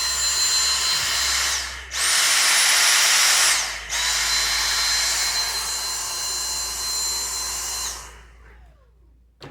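Cordless Dyson stick vacuum's motor running with a high whine, switched off and on twice in quick succession, the middle run higher-pitched, then winding down with a falling tone near the end. It runs steadily, a sign the repaired vacuum now has power.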